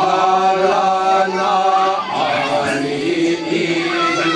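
A voice chanting a kagura song in long drawn-out notes that bend slightly in pitch, with a short break about two seconds in.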